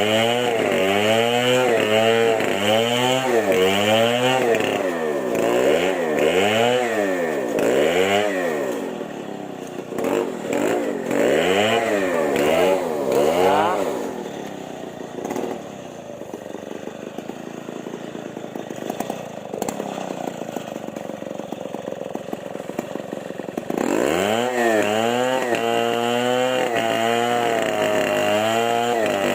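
Chainsaw engine revved over and over, about once a second, then a few uneven blips of the throttle. About halfway through it drops to a quieter idle for some ten seconds, then revs up sharply and holds at full speed.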